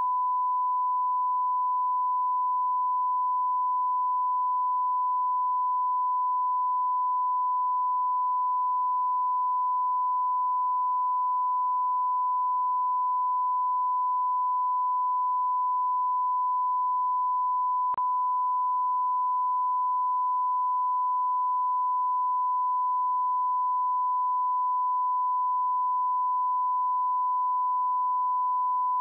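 Television test tone broadcast with colour bars: a continuous steady 1 kHz line-up tone, the signal a station sends while it is off the air overnight. A single faint click interrupts it partway through.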